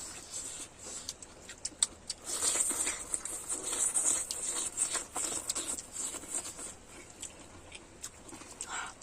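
Close-miked eating of boiled pork intestine: wet chewing and mouth smacking with many small clicks, busiest from about two seconds in and easing off later.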